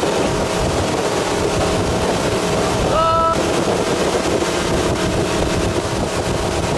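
Towboat's inboard engine running steadily at wakeboarding speed, with water rushing and wind buffeting the microphone. About three seconds in comes a brief shout.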